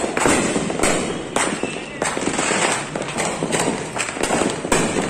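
Fireworks and firecrackers going off in a continuous barrage: a rapid string of sharp bangs over steady crackling.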